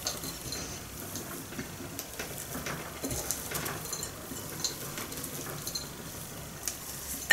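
Hands pressing and rolling a sticky lump of date paste in chopped nuts on a plate: a quiet, crackly rustle of nut pieces with scattered small clicks.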